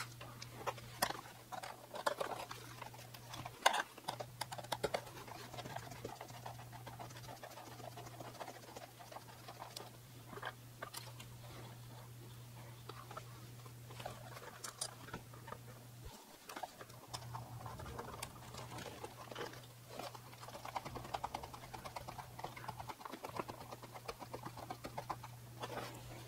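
Quick small clicks, taps and rustles of hands fitting small bolts, nuts and flying wires onto a foam RC biplane's wings, played back sped up, over a steady low hum.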